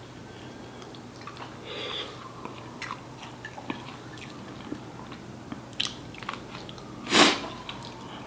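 Close-up mouth sounds of someone eating chicken curry: chewing and biting, with scattered small wet clicks. A short loud rush of noise about seven seconds in is the loudest moment.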